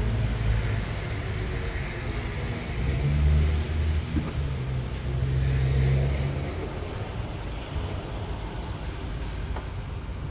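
Aerosol cleaner can hissing as it sprays through its straw into an empty car air filter housing, cutting off about eight seconds in. Underneath is a low rumble that grows louder twice.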